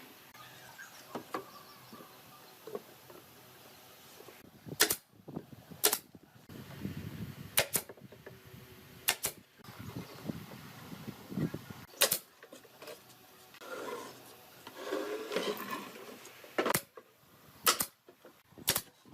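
Irregular sharp knocks of wood being struck and handled, about eight in all, with softer scraping and rustling between them.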